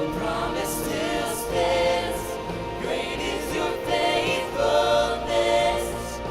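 Church worship music: a group of voices singing a worship song over steady instrumental backing.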